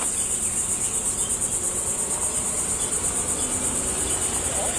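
Insects chirring in a steady high-pitched chorus with a fast, even pulse.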